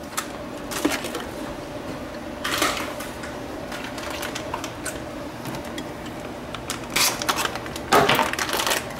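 Short, scattered rustles and clatters of kitchen handling as bacon bits are shaken onto pulled pork in an aluminium foil pan, over a faint steady hum.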